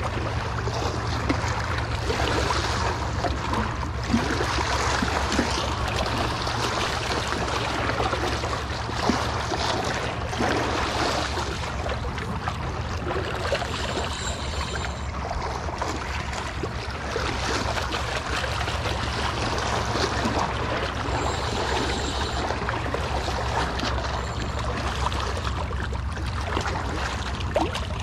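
Seawater sloshing and splashing against shoreline rocks: a steady noisy wash with a low rumble underneath and a few small clicks.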